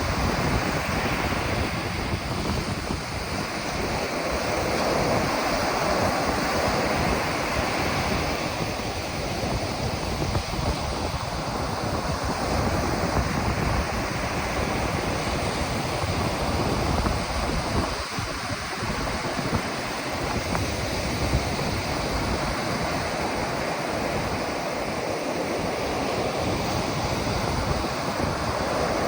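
Ocean surf: waves breaking and washing up on a beach in a steady, swelling rush, with wind buffeting the microphone.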